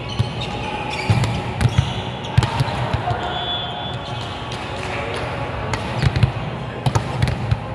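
Volleyballs being struck and bouncing on an indoor court: irregular sharp thuds over the steady background noise of a busy gym, with clusters of hits a little after a second in and again around six to seven and a half seconds.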